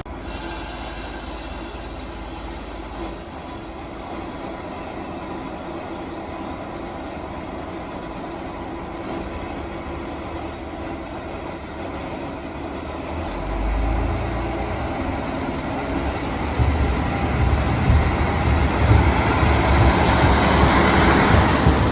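Diesel railcar on the Ōarai-Kashima Line: a low engine and wheel rumble sets in a little past halfway and grows steadily louder toward the end as the train comes close.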